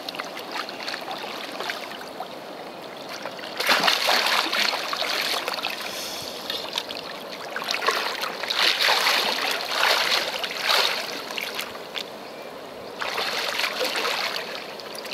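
Water splashing and sloshing in several irregular bursts as a large hooked wels catfish thrashes at the surface beside the boat.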